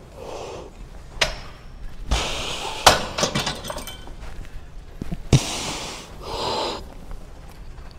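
Weight stack of a cable lat pulldown machine clinking and clanking as its steel plates lift and set back down during reps. There are several sharp metallic knocks, the loudest a little under three seconds in and another at about five seconds.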